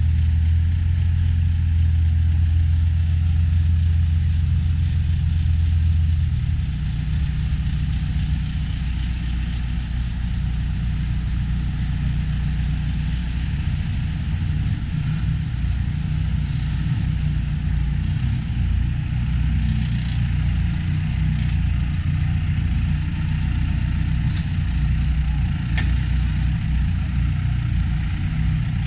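Large vehicle engine idling with a steady low hum. About six seconds in it drops a little in level and becomes rougher.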